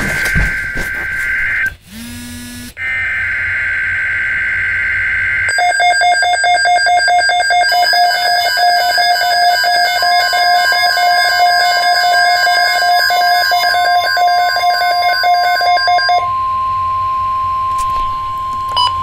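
Emergency Alert System activation tones. Two screeching bursts of SAME header data come first, with a brief low buzz between them. A fast-pulsing electronic alarm beep follows for about ten seconds, a steady high alert tone joins midway, and that tone carries on alone near the end.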